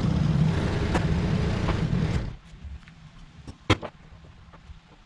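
A vehicle engine running with a steady low rumble, which stops abruptly a little over two seconds in. Afterwards it is quieter, with a few light clicks and one sharp click.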